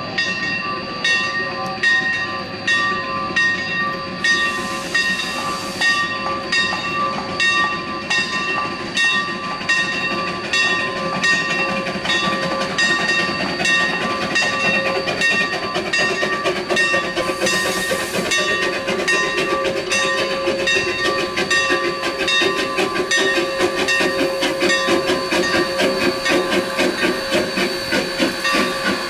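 A Shay geared steam locomotive arriving: its bell rings in a steady rhythm over quick, regular exhaust chuffs that grow denser as it draws near. There are two short bursts of steam hiss, about four seconds in and again about eighteen seconds in.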